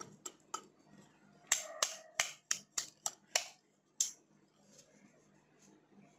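Steel mixer-grinder jar being tapped to knock powder out into a steel plate: a quick run of about ten light metallic taps, most of them packed together in the middle, with a last single tap about four seconds in.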